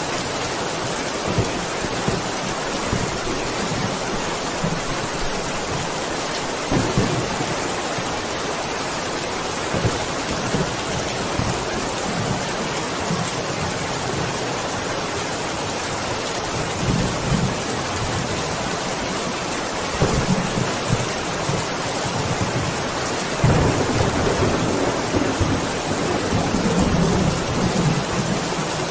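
Steady heavy rain with thunder rumbling low several times, the rumbles strongest and longest in the second half.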